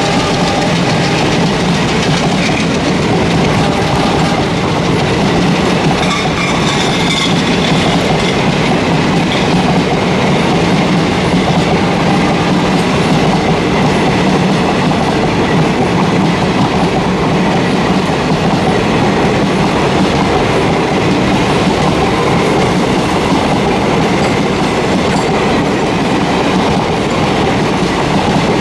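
Express train's passenger coaches rolling past close by, wheels clattering over the rail joints in a steady, loud rumble.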